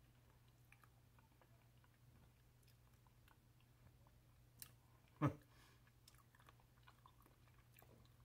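Faint chewing and crunching of an opossum eating dry cat food from a bowl, heard as scattered soft clicks over a low steady hum. About five seconds in, a single short louder sound drops quickly in pitch.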